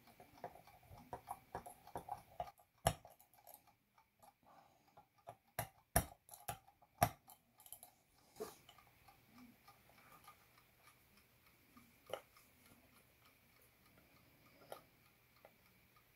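Small clicks and taps of a screwdriver and metal parts being worked on the back of a key-wind alarm clock's case, with a few sharper knocks about three, six and seven seconds in and a couple more later.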